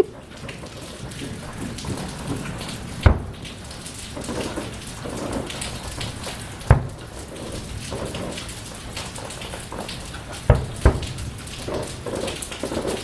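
Fireworks going off: a sharp bang about three seconds in, another near seven seconds, and a close pair near eleven seconds, over a steady crackling hiss.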